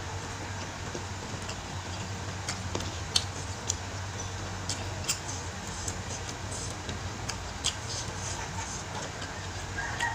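Scattered small clicks and smacks of chewing and of bare fingers picking at spicy goat meat on a plate, over a steady low hum. Near the end a rooster starts crowing.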